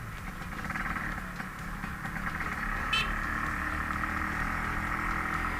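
Kawasaki HD3 Brutus two-stroke motorcycle engine with a 140 cc block, running as the bike is ridden slowly along, settling into an even note and getting a little louder about halfway through. A brief high chirp comes about three seconds in. The engine is on a new cylinder block still being broken in gently.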